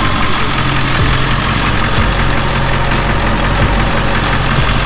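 Ford cutaway van's engine idling steadily at close range, with an even low hum.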